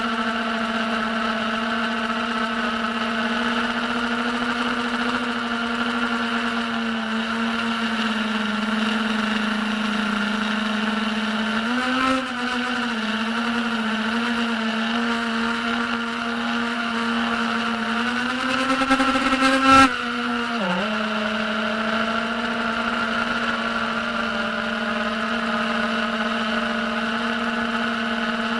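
Diatone Tyrant S FPV quadcopter's brushless motors whining at a steady pitch, wavering up and down with throttle changes around the middle. The pitch rises, then drops sharply with a click about two-thirds in, before holding steady again.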